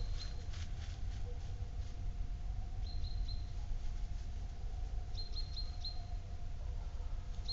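A small bird calling short high chirps in quick runs of three or four, about three seconds in and again just after five seconds, over a steady low rumble.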